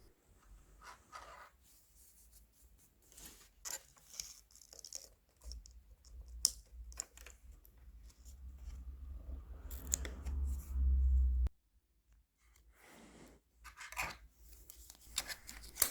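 Scraping and small clicks of memory modules being handled and slid into the iMac's RAM slots. There is a low rumble through the middle, which cuts off suddenly, followed by a few more faint clicks near the end.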